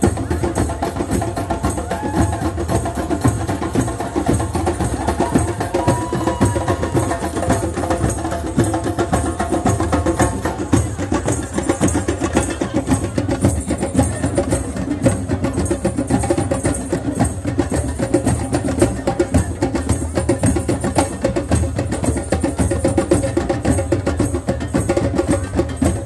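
Several hand drums played together in a steady rhythmic beat, dense with strikes.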